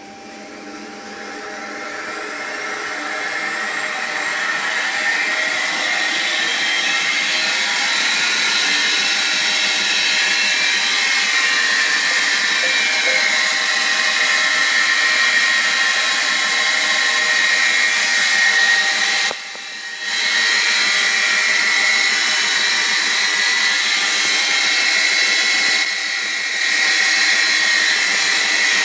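Horizontal belt grinder's motor and belt spinning up, growing louder over the first several seconds and rising in pitch, then running steadily at speed with a high whine. The sound drops briefly twice, about two-thirds of the way through and again later.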